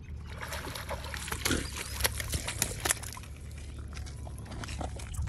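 Water splashing, with a flurry of sharp splashes from about half a second to three seconds in, then lighter sloshing, over a steady low hum.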